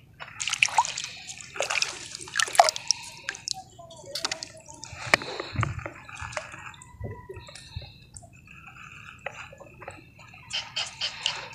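Small water splashes and drips mixed with irregular rustling and handling clicks, with one sharp click about five seconds in.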